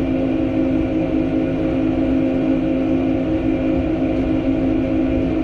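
Machinery running with a steady, unchanging hum: a drone of a few steady tones over a low rumble.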